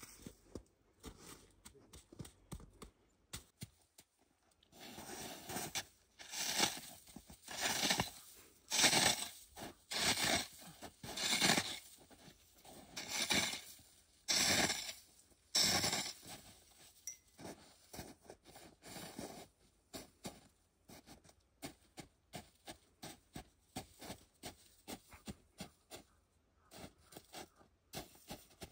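A shovel digging into snow, scraping and scooping about once a second for ten seconds or so, then lighter, quicker crunches of boots treading the packed snow.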